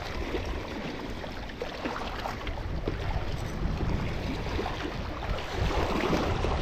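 Sea water washing at the shoreline, with wind rumbling on the microphone; the level swells slightly partway through.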